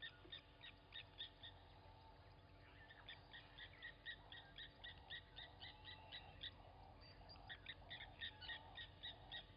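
Blacksmith lapwing giving its sharp, metallic 'klink' alarm notes in rapid runs of about three to four a second, breaking off twice briefly: the call it makes while mobbing a raptor.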